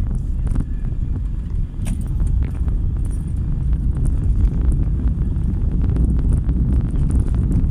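Car driving on a wet city road, heard from inside: a steady low rumble of engine and tyres, with scattered sharp ticks throughout.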